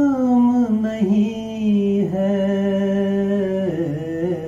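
A man singing a Punjabi poem without accompaniment, drawing out long held notes: the first slides down in pitch about a second in, and after a short break a second note is held steady, dipping just before it ends near the end.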